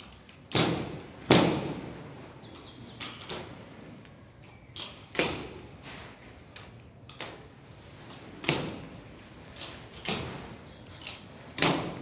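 A series of about a dozen irregular, sharp knocks and thuds, each dying away quickly.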